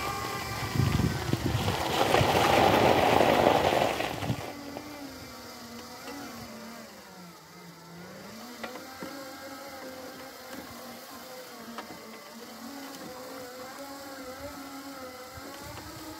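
Magic Mobility Extreme X8 four-wheel-drive power wheelchair driving, its electric drive motors whining, the pitch dipping about halfway through and rising again. For the first four seconds a louder rough noise of the knobbly tyres rolling on gravel covers the whine.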